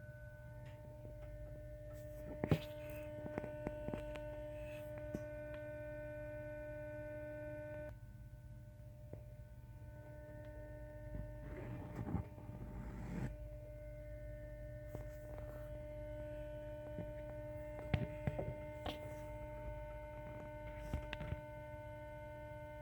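Steady electrical hum of several fixed pitches from a 2017 Toyota Tacoma V6 with the ignition on, from a component the owner has not found; it is not the fuse box behind the battery. The hum thins out about eight seconds in and fills back in a couple of seconds later. A few sharp clicks and a rustle of handling sound over it.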